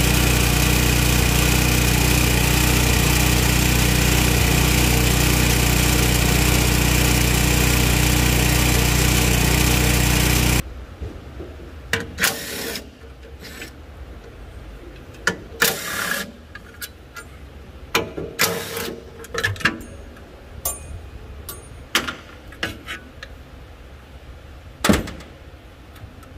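Keyang engine of a Hanil power carrier running at a steady speed, then stopping suddenly about ten seconds in. After that come scattered clicks and knocks of tools and metal parts being handled.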